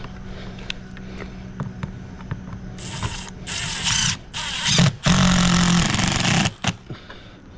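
Handheld power driver run in short bursts, then one longer run of about a second and a half, driving a screw through a conduit strap on EMT conduit into wood siding.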